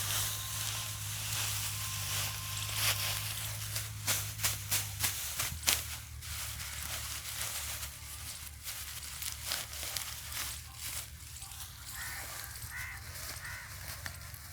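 Dry harvested rice straw being handled and bound into sheaves: bursts of crackling and rustling, loudest about four to six seconds in, over a steady low hum.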